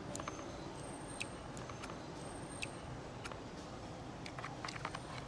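Outdoor street ambience: a steady low background hum with scattered light clicks, a cluster of them near the end, and a few brief high chirps.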